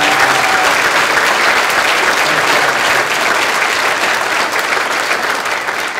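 Crowd applauding, loud and steady, beginning to ease off near the end.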